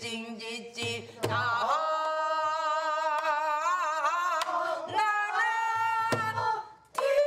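A woman singing in Korean pansori style, holding long notes with a wide wavering vibrato, with a few low knocks beneath the voice.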